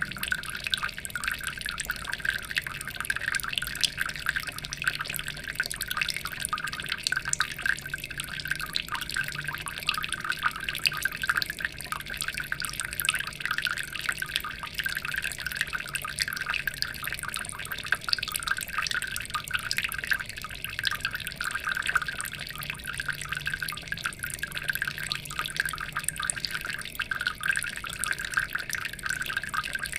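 Water falling and splashing steadily into water: a dense, unbroken patter of small drips and splashes.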